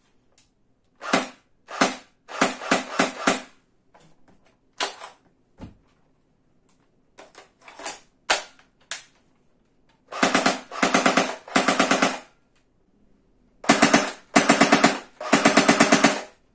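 CYMA CM.060 P90 airsoft electric gun (AEG) firing. It fires single shots and short strings first, then from about ten seconds in several short full-auto bursts of rapid, evenly spaced cycling from its metal V6 gearbox.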